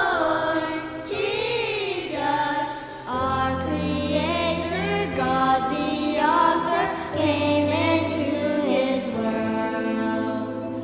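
A small group of voices singing a hymn with musical accompaniment, the sung notes wavering with vibrato. Sustained low notes join about three seconds in.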